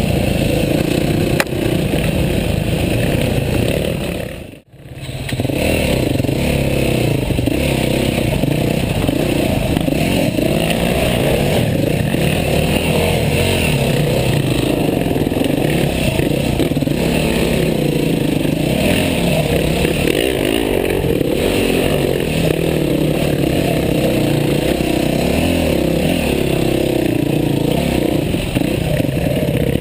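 Enduro dirt bike engine running and revving as it rides a rough trail, with clatter and scraping from the rough ground. The sound drops out for a moment about four and a half seconds in.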